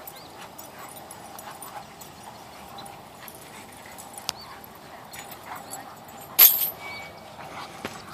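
Dogs vocalizing as they play together, with a sudden, loud, sharp yelp about six and a half seconds in.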